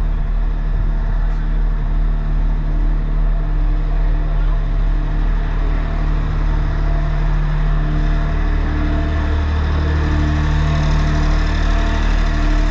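Engine of a tow-behind 4000 PSI sewer jetter running steadily while it pumps water to the hose, with a slight change in pitch about nine seconds in.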